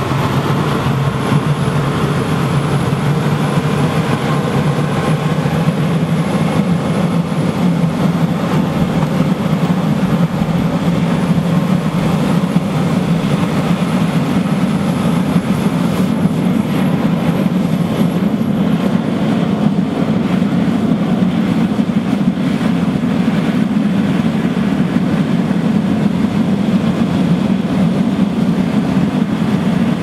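Air blower of a waste-oil drip-burner furnace running steadily, forcing air into the 60-litre drum furnace as the oil-soaked paper inside burns and the fire lights up, a loud, even low rush with no breaks.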